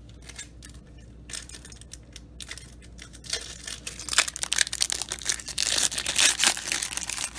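Foil wrapper of a 2019 Topps Chrome trading-card pack crinkling and tearing as it is ripped open, starting about three seconds in after a few light handling clicks.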